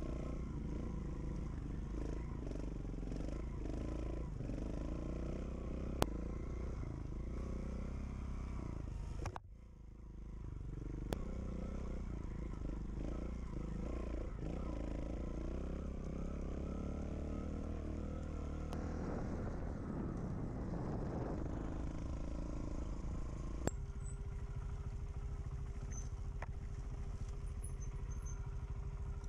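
Off-road trail motorcycle engine running under the rider, its note rising and falling with the throttle over rough ground. The sound drops briefly about nine seconds in, and near the end it settles into a steadier note; a few sharp clicks stand out.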